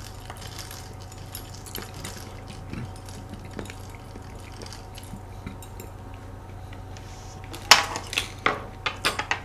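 Quiet eating with faint taps of metal cutlery in plastic dessert cups. Near the end come a few sharp clinks and clatters as a metal fork is set down on the wooden table.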